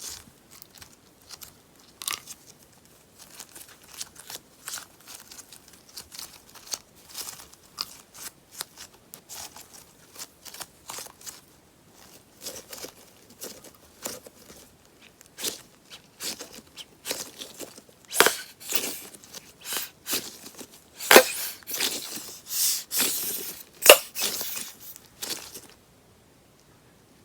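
Beeswax slime crackling and popping as it is worked, a run of small snaps that grows louder and denser for the last several seconds, then stops.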